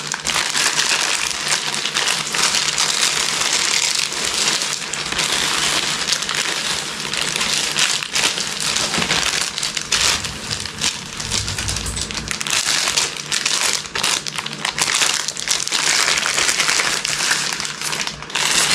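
Packaging crinkling and rustling without a break as it is handled and pulled open to unwrap a fishing rod.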